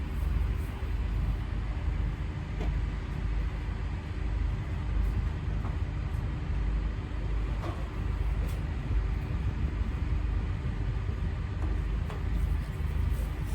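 A steady low engine-like rumble of machinery running, with a few faint clicks and knocks.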